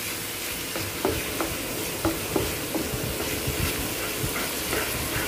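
Wooden spatula stirring thick, sticky bread halwa in a non-stick frying pan, with irregular soft taps and scrapes against the pan over a steady sizzle of the hot oil and sugar syrup.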